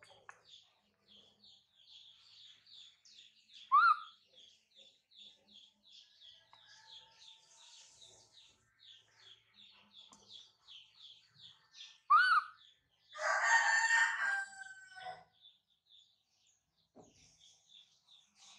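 Birds calling: a small bird chirps over and over in a quick, steady rhythm. A sharp rising call comes about four seconds in and again around twelve seconds. Right after it comes a loud call of about two seconds, the loudest sound of all.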